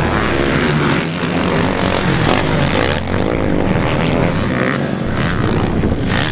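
Motocross dirt-bike engines racing around the track, droning loudly with the pitch sliding up and down as riders work the throttle.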